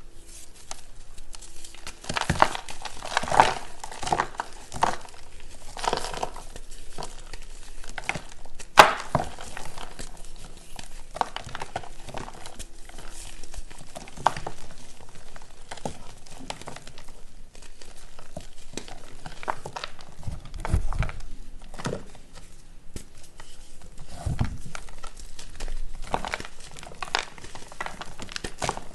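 Reformed gym chalk discs crunching and crumbling as they are crushed, a steady run of irregular crunches with a sharper crack about nine seconds in.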